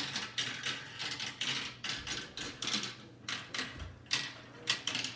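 Marbles clattering down a plastic marble-run track: a quick, irregular series of clicks and clacks.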